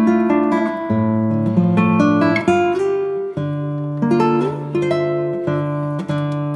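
Background music of strummed and plucked acoustic guitar chords, changing every second or so.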